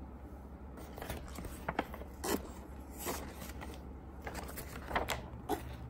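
Pages of a paper model-kit instruction manual being turned by hand: several brief papery rustles and flicks.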